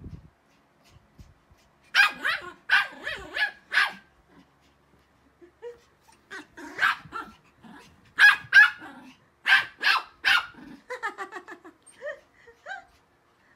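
Pomeranians barking in play: sharp, high barks in bursts of several, with a second or two of quiet between the bursts and a quicker run of smaller yips near the end.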